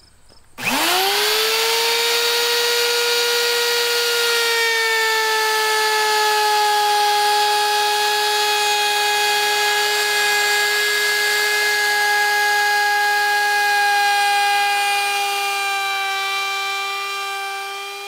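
Handheld plunge router with a round-over bit starting up and spinning up quickly to a steady high whine, then rounding over the edge of a spalted maple board, its pitch sagging slightly under the cut. The whine fades away near the end.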